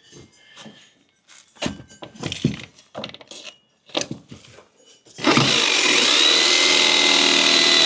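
Knocks and clicks of tools and parts being handled, then about five seconds in a power drill starts and runs steadily at speed, its whine rising as it spins up, drilling a hole.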